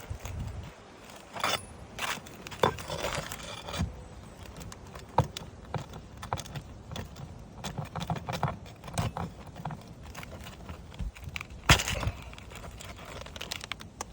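Irregular scraping, crinkling and short knocks of hands and tools working at asphalt roof shingles, with a sharp knock about five seconds in and a louder one near the end.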